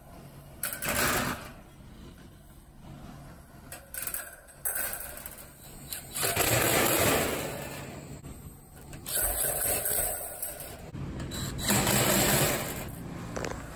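DeWalt cordless impact driver hammering sheet-metal screws into an air-conditioning condenser's top panel, in several bursts a few seconds apart. A steady low hum runs underneath.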